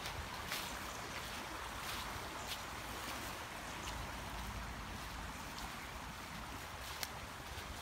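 Steady rushing of a swollen, fast-flowing muddy river, with a few faint footsteps on leaf litter.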